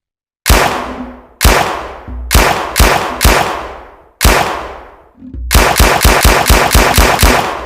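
Tommy gun (Thompson submachine gun) sound effect: six separate loud shots over about four seconds, each trailing off in a long echo, then a quick string of shots at about four a second starting around five and a half seconds in.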